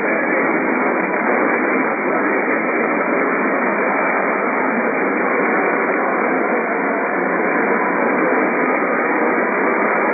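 Steady radio static: an unbroken hiss from a radio receiver with no broadcast coming through.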